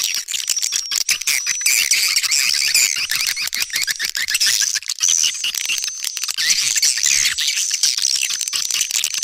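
Swiftlet lure call recording: a dense, unbroken chatter of high chirps and twitters laced with rapid clicks, with a thin high whistle coming and going over it. This is a swiftlet call sound (suara panggil), the kind played at a swiftlet house to draw swiftlets in.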